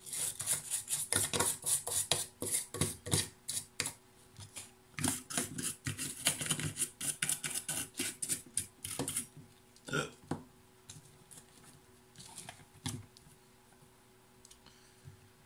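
Hands working on a small portable radio speaker's parts: a fast run of sharp clicks and light knocks for about nine seconds, then a few scattered clicks.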